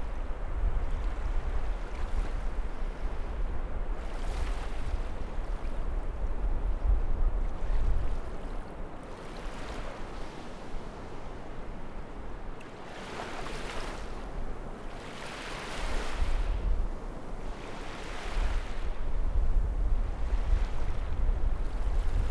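Waves washing onto the seashore, a hissing surge every few seconds. A low rumble of wind buffets the microphone, heaviest at the start and end.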